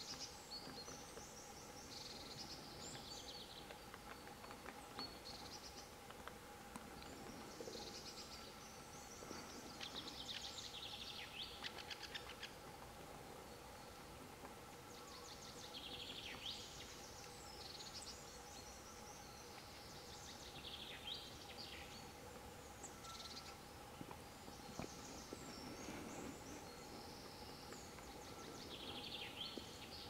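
Small songbirds singing faintly, short high trilled phrases coming every two or three seconds, over a faint steady hum.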